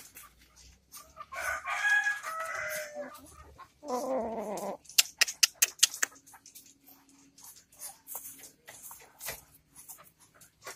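Kampung hen calling: a drawn-out call about a second in, then a second call whose pitch falls, the restless calling of a hen that is about to lay and is looking for a nest. A quick run of sharp clicks follows about halfway, then faint rustling.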